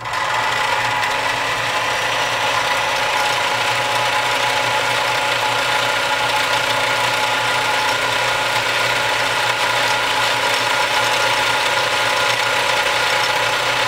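Omega 307 sewing machine's electric motor running steadily, driving the bobbin winder to wind a bobbin, with the needle drive disengaged by the loosened clutch knob. A steady mechanical whir.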